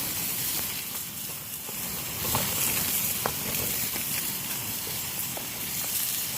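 Sirloin steak frying in a pan: a steady sizzle with a few sharp spits and pops.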